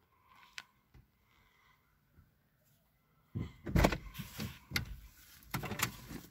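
Bumps and rustling of someone getting into a car, a car door among them, starting about three seconds in after near quiet.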